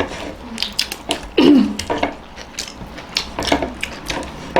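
Eating sounds: a scatter of small clicks and taps from hands, food and dishes, with a short falling voice-like sound about a second and a half in.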